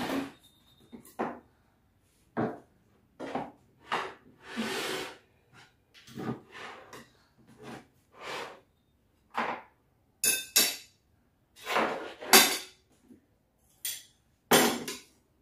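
Plates, cutlery and jars being set down and moved about on a wooden table: a string of short, irregular clinks and knocks.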